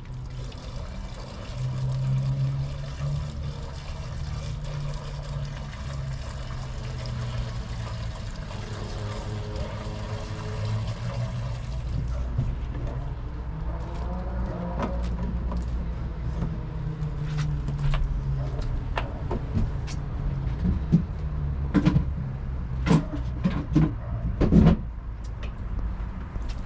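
A steady low rumble, with knocks and clatter in the second half; the loudest knocks come a few seconds before the end.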